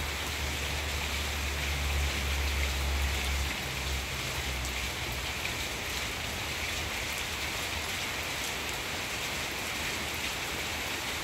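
Steady rain falling on paving and garden plants, a dense, even patter of drops. A low rumble runs underneath for the first three and a half seconds, then fades out.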